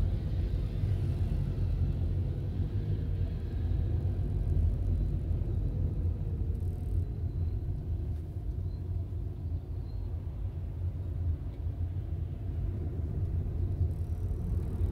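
Steady low rumble of a car driving in slow city traffic: engine and road noise.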